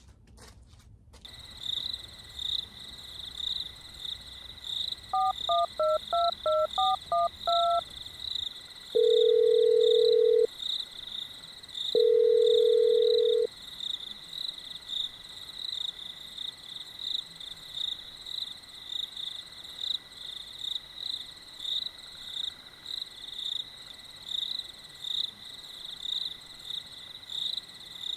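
A phone number being dialed: about ten quick touch-tone keypad beeps, then two long ringing tones a second or so apart. Crickets chirp steadily throughout.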